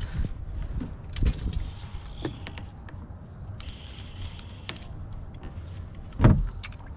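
Handling noise from a fly rod and reel while a fish is being played from a boat: scattered small clicks, knocks and rubbing over a low rumble, with one heavy thump about six seconds in.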